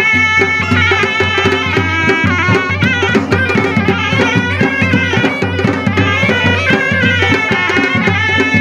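Harip dance music from Gilgit-Baltistan: surnai shawms play a wavering, ornamented reedy melody over a steady, driving beat on dadang and dhamal drums.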